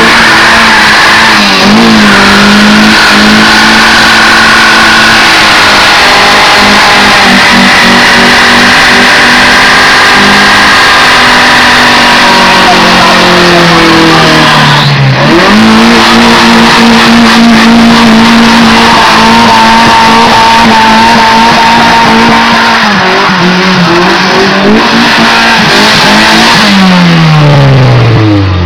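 Honda CRX engine held at high revs in a stationary front-wheel-drive burnout, the front tyres spinning and squealing; very loud throughout. About halfway the revs dip briefly and climb back, and near the end they fall away.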